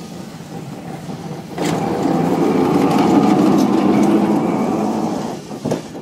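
A street tram passing close by, its steel wheels rumbling and clacking on the rails. It swells suddenly about one and a half seconds in and fades near the end, followed by a couple of sharp clicks.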